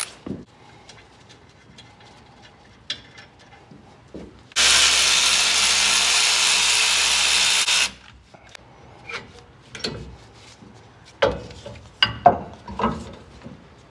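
M12 cordless 3/8-inch power ratchet with a 10 mm socket running steadily for about three seconds, backing out a brake caliper bolt. Short metallic clicks and knocks from the caliper and tools being handled come before it and several times after it.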